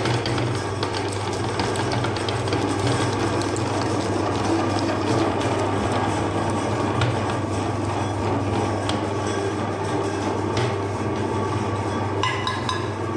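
Electric meat grinder running steadily with a low motor hum, its auger grinding an ice cream bar, with many small irregular clicks.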